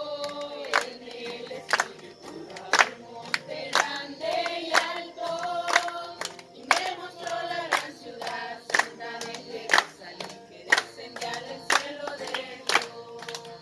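A group of voices singing together, with hands clapping a steady beat of about two claps a second.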